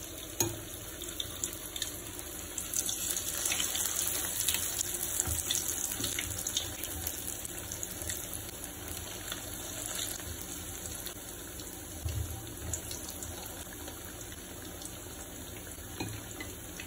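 Cornstarch-coated eggplant pieces deep-frying in hot oil in a wok: a steady sizzle, louder a few seconds in, with a few faint knocks.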